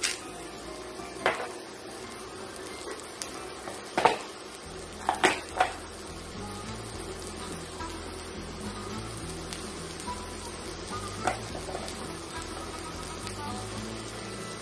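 Diced potato and onion frying in olive oil and butter in a cast-iron skillet: a steady sizzle. A few sharp knocks of kitchenware come in the first six seconds, and one more later.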